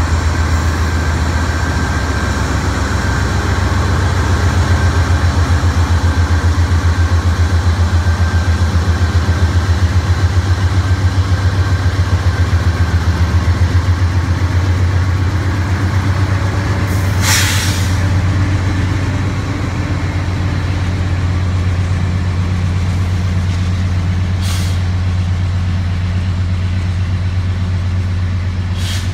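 Norfolk Southern freight train pulling out: the diesel locomotives pass close, a deep, rhythmically pulsing engine drone that swells and then eases as the double-stack container cars follow. There is a loud hiss of air about halfway through, and shorter hisses later.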